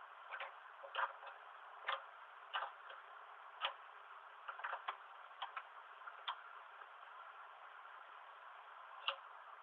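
Irregular sharp clicks and taps, roughly one a second and then one more near the end, as the mini-mill's air spring mounting bolt is loosened and the mount slid up the column.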